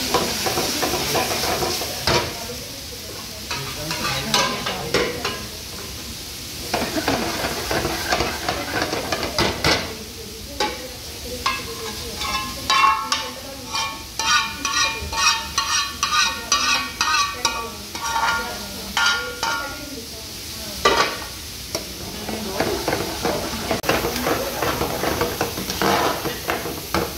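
A steel ladle stirs and scrapes sliced mushrooms around a hot steel frying pan, with sizzling. Around the middle, after brown sauce goes in, the ladle strokes against the pan come quickly, about two a second, with a ringing metal scrape, over the sizzle.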